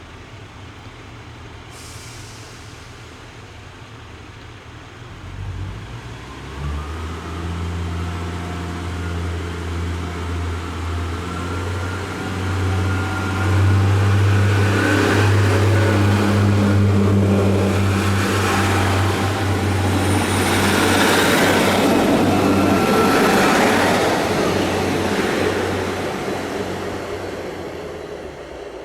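Diesel multiple unit train, a Class 143 Pacer, going past: a steady low diesel engine hum starts about six seconds in and grows louder, joined by loud rolling wheel and rail noise in the middle, then fades away near the end.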